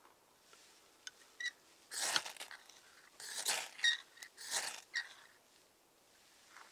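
Ferro rod (firesteel) struck with a steel edge to throw sparks onto wood shavings: three harsh scraping strokes, about two, three and a half and four and a half seconds in, with a faint metallic ring. Two small clicks come about a second in, as the striker is set against the rod.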